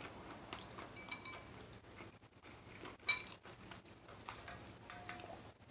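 Metal fork clinking and scraping against a ceramic bowl of noodles while eating, with a louder ringing clink about three seconds in and faint chewing between.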